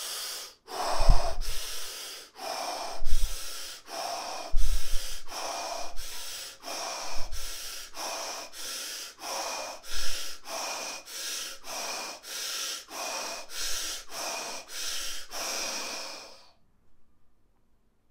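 Rapid, forceful in-and-out mouth breathing: about ten deep 'bellows' breaths of deliberate hyperventilation, some exhalations thumping on the microphone. The breathing stops abruptly a second or two before the end, when the air is fully exhaled and the breath is held.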